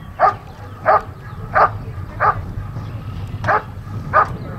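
A dog barking in an even rhythm, about one bark every two-thirds of a second: six barks, with one beat skipped about halfway through.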